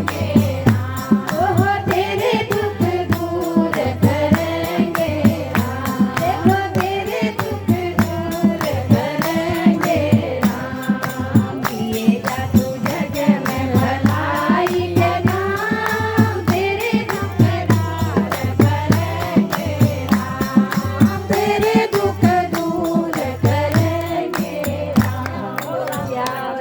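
A woman singing a Hindi devotional bhajan, her melody wavering and ornamented, over a steady rhythm of hand percussion and a repeating low accompaniment.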